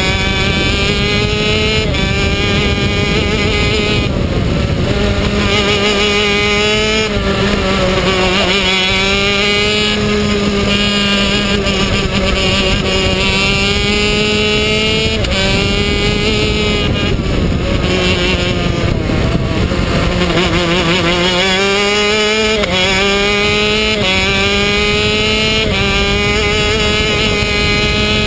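Honda six-speed two-stroke shifter kart engine heard onboard at race speed, revving up through the gears with a quick break in pitch at each paddle-shifted upshift. At the corners the pitch falls away under braking and downshifts, then climbs back up again.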